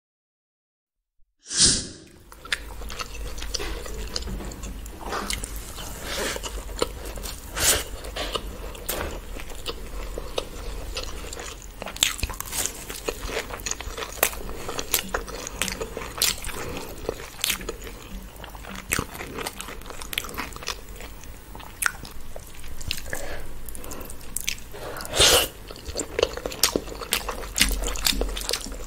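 Close-miked eating sounds: chewing, biting and wet mouth clicks as rice and curry are eaten by hand, over a steady low hum. A single sharp click comes about a second and a half in, just after a short silence.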